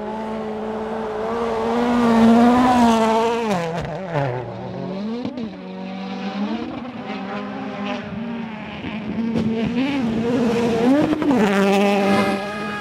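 Rally car engines at high revs, their pitch held high and steady, dropping sharply about four seconds in and climbing back. Later there are quick up-and-down swoops of revving as the cars lift and shift gears through the corners.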